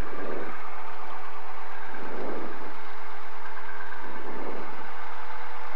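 Cessna 172's engine running at low, taxi power, heard inside the cockpit, with a steady whine and a soft pulse about every two seconds.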